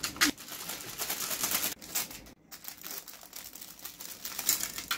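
Plastic packaging crinkling and rustling, with irregular clicks and rattles of plastic toy parts being handled while a toy car track set is unpacked.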